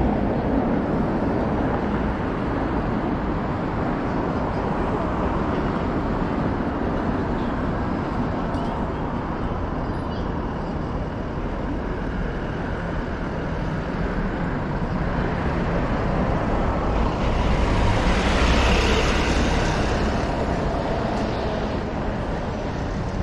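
Steady city street traffic noise, with one vehicle passing close about three quarters of the way through, bringing a louder rush of sound that then fades.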